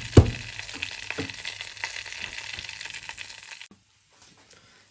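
Ghee sizzling and crackling in an aluminium pot with gram flour (besan) just added on top, with a sharp knock just after the start. The sizzling cuts off suddenly about three and a half seconds in.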